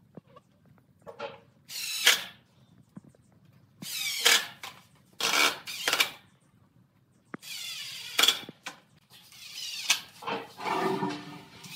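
Makita cordless impact driver run in about six short bursts, its pitch rising and falling within each, driving screws through caster mounting plates into pallet wood.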